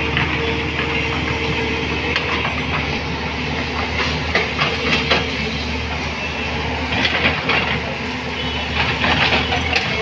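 JCB backhoe loader's diesel engine running steadily while the machine works mud. Several bursts of rattling and knocking come through, with a faint whine on and off.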